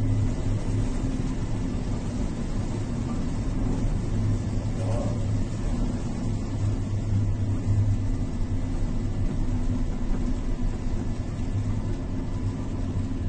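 Steady low rumble and hum of a cargo ship under way in heavy seas: the ship's engine and hull vibration, with wind and breaking waves over it.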